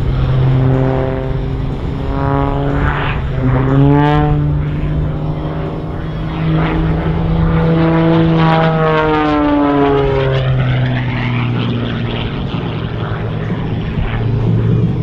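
MXS-RH aerobatic monoplane's piston engine and propeller droning overhead, the pitch sweeping up and falling away as the plane climbs, rolls and passes.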